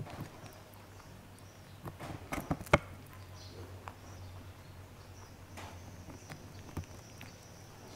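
Rabbit biting and chewing a raw cauliflower floret: a quick run of crisp crunches about two to three seconds in, the sharpest of them the loudest sound, then a few softer crunches later.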